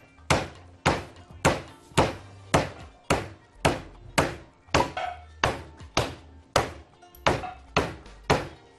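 Chicken breasts being pounded flat on a wooden cutting board: a steady run of thuds, about two a second.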